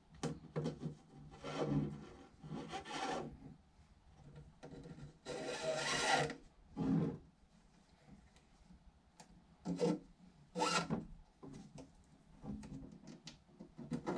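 Textured panels of a kayak crate being handled and slid against each other during assembly, in a series of short, scratchy rubbing and scraping strokes, the longest lasting about a second near the middle.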